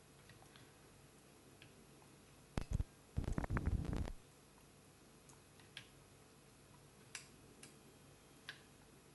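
Tools being handled during desoldering work at a bench: two sharp clacks about two and a half seconds in, then about a second of rapid rattling clatter, the loudest sound, followed by a few faint ticks.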